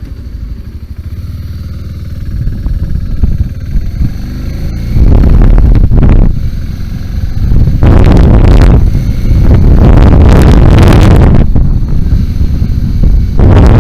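BMW G 650 GS single-cylinder engine running at low, steady revs, then the sound swells to a much louder rumble from about five seconds in, in several surges as the motorcycle is ridden off-road.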